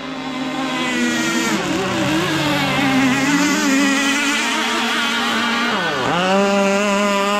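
Small gasoline two-stroke engine of an RC powerboat running at high revs, its pitch wavering. About six seconds in, the revs drop sharply and climb straight back up, a quick throttle lift and reopen.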